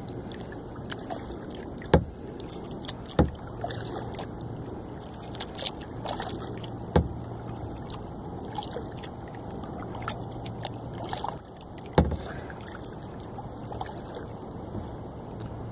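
Kayak paddling on calm water: a steady swish and dribble of water from the paddle strokes, broken by four sharp knocks, the first two about a second apart and the last near the end.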